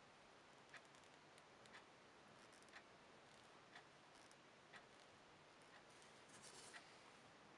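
Faint ticking of a clock, one tick a second, over near silence. A few light irregular taps and scrapes of a hand tool working the leather come in between, most of them about two-thirds of the way through.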